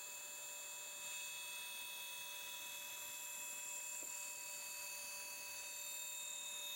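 CNC wheel repair lathe running as it machines a wheel hub, a faint steady whine made of several high tones.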